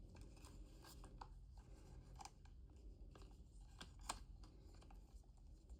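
Faint handling noises as a case is fitted onto a compact camera: a scattering of small clicks and light rubbing, one every second or so, over quiet room tone.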